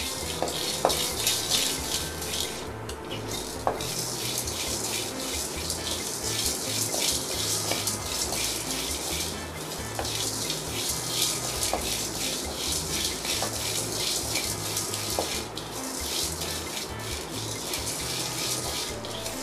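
A wooden spatula stirring and scraping whole spices (black peppercorns, cumin, fennel, cinnamon, clove and cardamom) around a dry aluminium kadai as they roast, a fast, continuous rasping scrape with a few brief pauses.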